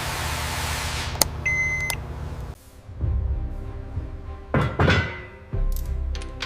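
A steady hiss with a sharp click and a short beep, then background music with a few thuds in the second half.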